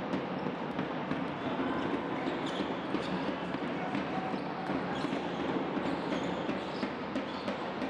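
Basketball game sounds: a ball bouncing on the court, with scattered sharp knocks over a steady background din.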